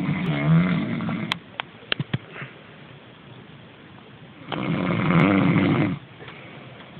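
Man snoring loudly like a tractor: one long snore at the start and another about four and a half seconds later, each lasting a second or more, with a few sharp clicks in the lull between them.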